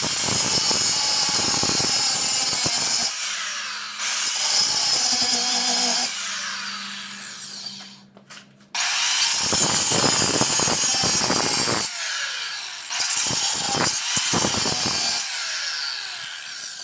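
Power tool fitted with a grinding wheel cutting into a metal exhaust pipe to enlarge holes. There are two long runs: the first winds down with a steady hum about eight seconds in, and after a short pause the second runs and fades near the end.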